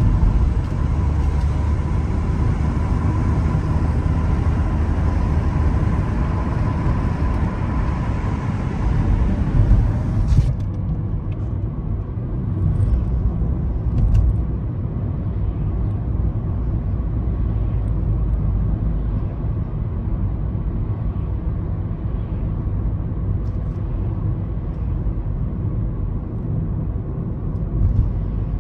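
Car driving, a steady low rumble of road and engine noise. A higher hiss of wind and tyres over it cuts off suddenly about ten seconds in, leaving mostly the low rumble.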